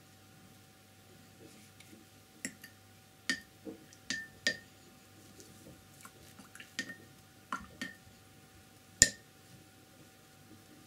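Paintbrush being rinsed in a glass water jar: about ten irregular, sharp clinks of the brush against the glass, several with a short ringing note, the loudest about nine seconds in.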